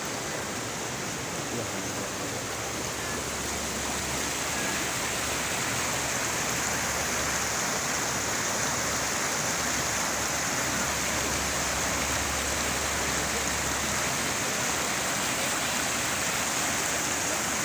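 Steady rushing water noise, an even hiss with no breaks or single events.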